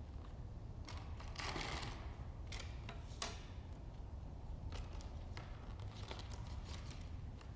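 Handling of a new air blow gun and its packaging: scattered light clicks and taps with a brief rustle about one and a half seconds in, over a steady low hum.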